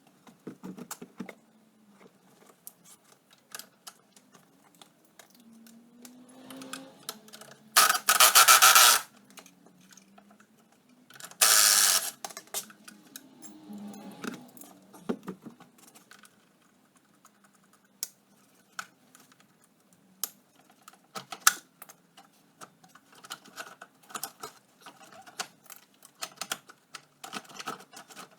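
Rapid small clicks and clatter of hand tools on metal parts as the ATV is taken apart, with two loud bursts of noise about a second long, the first about a third of the way in and the second a few seconds later.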